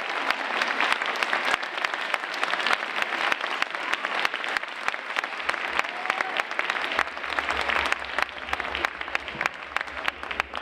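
Audience applauding, a dense run of claps that thins out and grows quieter near the end.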